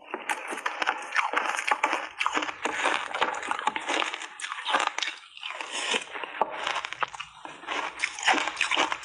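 A person chewing crunchy block ice, close to the mouth. It is a dense run of crackling crunches with a few short pauses between bites.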